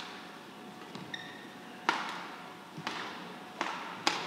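Badminton rally: racket strings striking the shuttlecock in sharp cracks about two seconds apart, the loudest about two seconds in, with a brief squeak of a shoe sole on the court floor.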